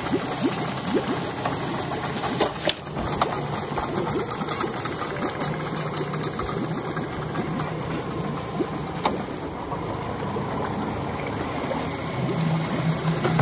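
Boat's outboard motor idling steadily, with a couple of sharp clicks about three and nine seconds in.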